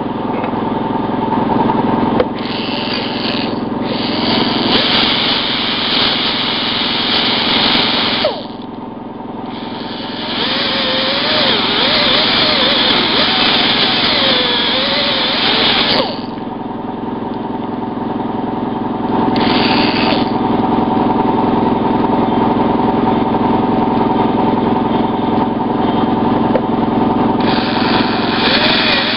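Small handheld power tool running steadily with a whining motor, grinding down a plastic tab on a dashboard cover. Several stretches of harsher grinding noise come as it bites into the plastic.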